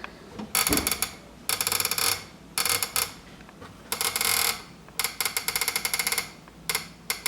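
Panasonic RC-6040 flip clock's number cards flapping over in rapid clicking runs as the time is wound forward, in about six bursts with short pauses between them.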